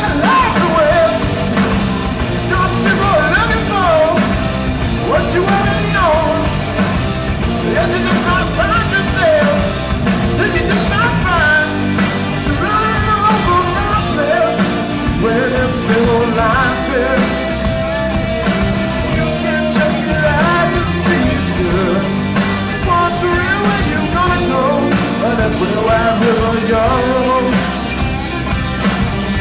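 Live rock band playing: electric guitars over bass and a drum kit, loud and continuous.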